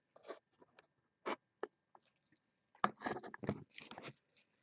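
Crinkling and crackling of the clear plastic wrap on a sealed trading-card box as it is handled: scattered clicks at first, growing denser and louder about three seconds in.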